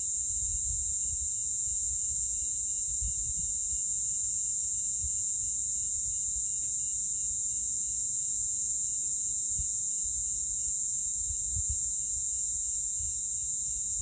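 Cicada chorus: a steady, unbroken high-pitched drone that does not rise or fall.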